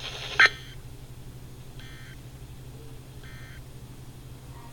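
Emergency Alert System end-of-message code on NOAA Weather Radio: three short bursts of two-tone digital data, the first the loudest, signalling the end of the alert. A low steady hum runs underneath.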